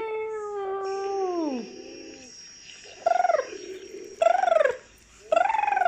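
Animal-like calls, cat- or dog-like: one long drawn-out call that drops in pitch and fades about a second and a half in, then three short mews that each rise and fall in pitch.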